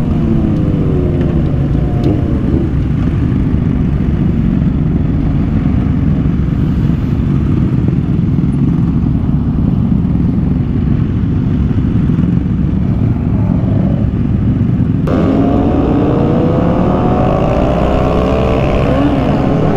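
Motorcycle engines running and revving while riding, with steady wind and road noise; the pitch rises and falls with the throttle, and about fifteen seconds in the sound turns suddenly brighter as more revving comes in.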